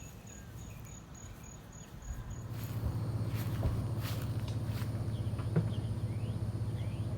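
Crickets chirping in an even pulse, about three chirps a second. About two and a half seconds in, a louder low rumble with scattered clicks and rustles sets in and covers the chirping.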